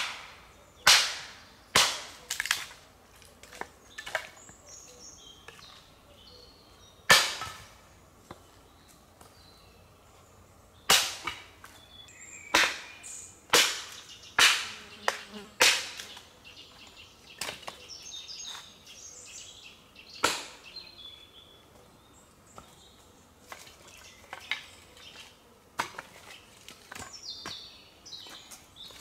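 An irregular series of sharp, loud knocks or cracks, sometimes about one a second and sometimes several seconds apart, each dying away quickly. Faint high chirps sound between them.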